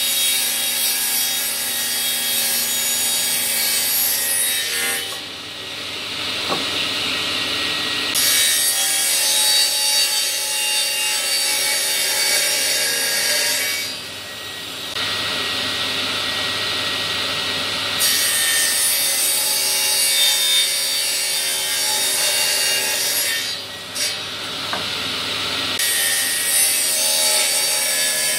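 Table saw running, its blade cutting through thick plywood several times. The high hiss of the cut drops away between passes while the blade spins on.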